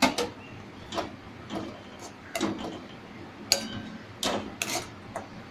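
A spoon knocking and scraping against a metal wok (kadai) while tomato purée is stirred into garlic and butter: irregular clinks about once or twice a second, a few of them ringing briefly.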